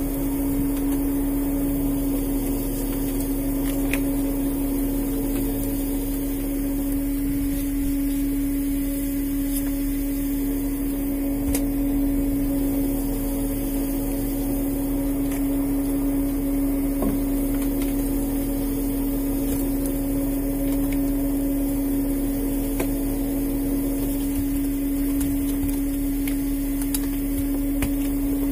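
Steady mechanical hum of a longline fishing boat's machinery, including its hydraulic line hauler, as a rope longline is hauled in, holding one even pitch throughout, with a few faint clicks.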